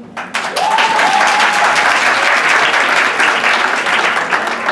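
Audience applauding in a theatre: a dense burst of clapping that starts suddenly a moment in and eases slightly near the end, with one held high call from the crowd over it for about a second.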